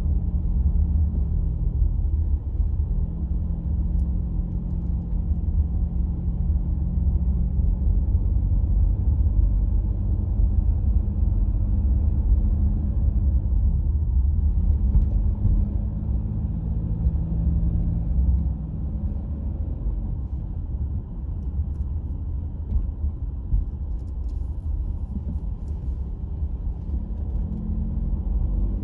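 Car driving through town streets: a steady low rumble of engine and road noise, with the engine note rising and fading at times.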